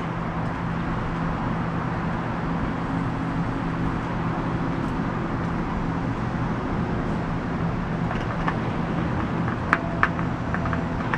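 Electric air pump running steadily with a low hum, inflating a chamber of an inflatable raft, with a few light clicks near the end.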